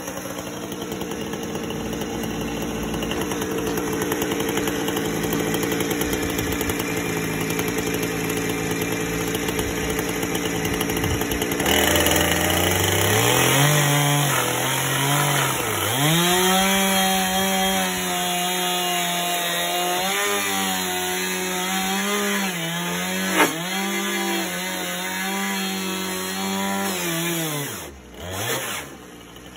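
Allis-Chalmers D17 tractor engine idling steadily. About twelve seconds in, a chainsaw revs up and cuts into the deck's timber, its pitch dipping several times as it bogs in the cut and picking up again. It shuts off near the end.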